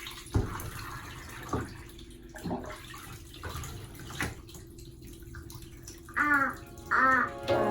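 Bath water splashing in a tub in separate slaps about once a second, as a baby plays in it. Near the end, two short high-pitched vocal squeals from the baby.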